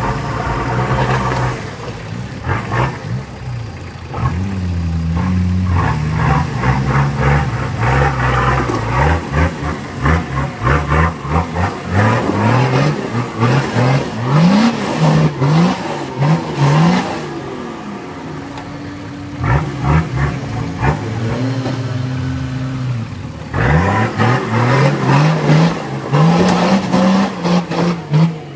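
Off-road vehicle engine revving up and down again and again, with rattling and knocking from the vehicle. The engine settles lower and steadier for a few seconds past the middle, then revs hard again.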